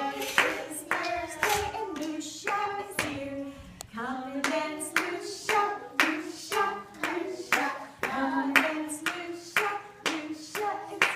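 A woman singing a simple children's circle song, with hands clapping in time at a steady pace of about two claps a second.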